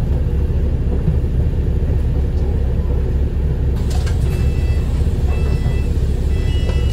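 Steady low rumble of a Wright New Routemaster (NB4L) double-decker bus under way, heard from inside on the upper deck. There is a knock a little before four seconds in, and a faint high whine near the end.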